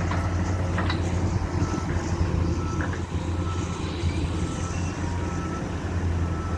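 Heavy diesel machinery, a wheel loader working with a dump truck, running steadily under a deep engine drone, while a reversing alarm beeps at intervals.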